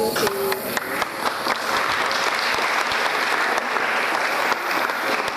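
Audience applauding: dense clapping that swells about a second in, just after a held musical tone ends.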